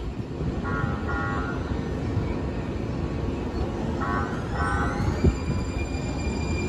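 San Diego Trolley light-rail train in the station, with a steady low rumble. A paired bell-like signal (two short tones) sounds about a second in and again about four seconds in. From about four and a half seconds an electric whine rises in pitch and then holds steady.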